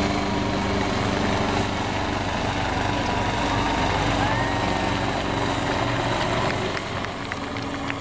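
AgustaWestland HH-139A (AW139) twin-turbine helicopter in slow flight: steady rotor and engine noise with a high steady whine, easing off slightly near the end.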